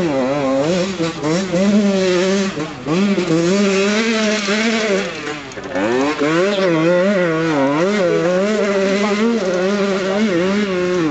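HM CRE dirt bike engine revving up and down as it is ridden, its pitch rising and falling with the throttle and dropping back briefly about three and six seconds in. The owner calls the bike half falling apart and full of strange noises.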